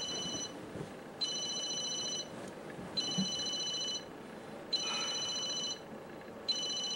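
Phone ringing with an electronic ringtone: a steady, high, beep-like ring about a second long that repeats every second and three-quarters or so, four times here.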